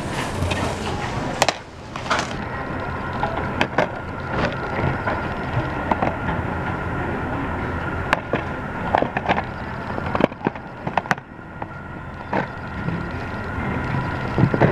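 Plastic Blu-ray cases clicking and clacking against one another as they are shuffled through and picked up from a bin, in irregular sharp knocks, over a steady faint hum.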